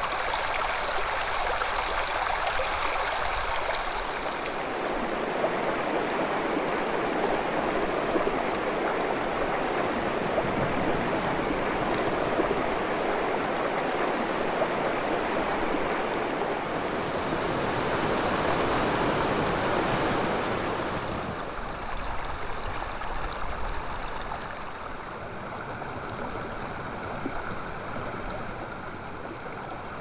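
Mountain stream running fast between snow-covered rocks, a steady rush of water that drops to a softer flow about twenty seconds in.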